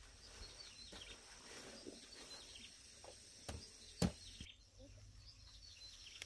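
Faint bird chirps, scattered throughout, against quiet rural background noise. A sharp knock about four seconds in is the loudest sound, with a smaller one just before it.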